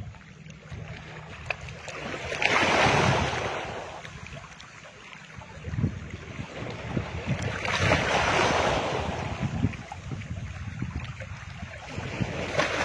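Outdoor wind and water noise: wind buffeting the microphone with a low rumble and crackle, while a rushing hiss swells up and fades away three times, several seconds apart.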